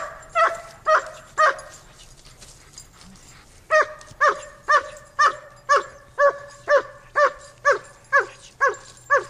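A shepherd dog barks in protection bite-work agitation at the helper. It gives four quick barks, goes quiet for about two seconds, then barks steadily at about two barks a second.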